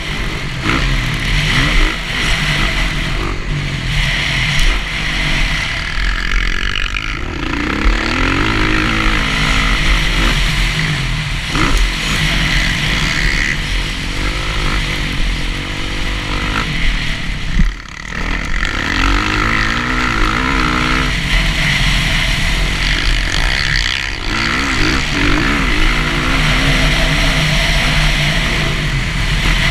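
Dirt bike engine being ridden hard, revving up and down through the gears, with wind rushing over the on-bike camera's microphone. The engine drops off sharply about eighteen seconds in, then picks up again.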